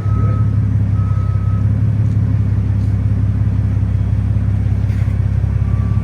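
Car engine idling with a steady, deep low rumble. A short electronic beep sounds at the very start and again about a second in.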